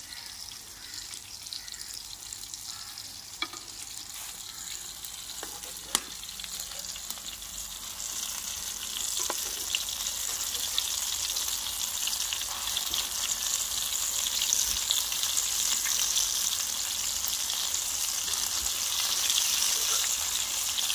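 Pea-and-potato patties deep-frying in hot oil in an aluminium pan, a steady sizzling that grows louder about eight seconds in. A few sharp clicks of the metal spoon against the pan as the patties are turned.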